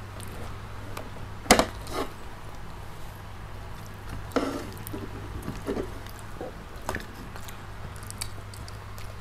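Close-miked eating with the hands: chewing and fingers picking at fried chicken and rice on plastic plates, giving scattered small clicks and knocks, the loudest about one and a half seconds in. A steady low hum runs underneath.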